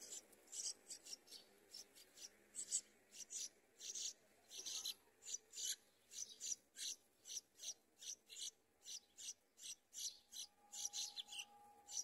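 Yellow-vented bulbul nestlings begging for food: a rapid series of short, high, raspy calls, about three a second.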